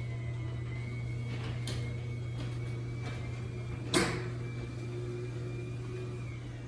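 Chamberlain B970C belt-drive DC garage door opener running as the door travels: a steady low hum with a faint high whine, and a single clunk about four seconds in.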